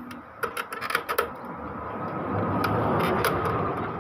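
Sharp plastic clicks and knocks, then a longer scraping rattle that swells and fades, as the paper tray and casing parts of an Epson L3110 inkjet printer are worked loose by hand.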